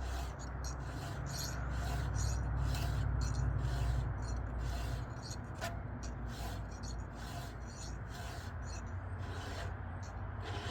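Chainsaw file being stroked across the chain's cutter teeth in a steady rhythm of short rasping strokes, about two to three a second, while the left-side cutters are sharpened. A low steady rumble runs underneath and drops away about halfway through.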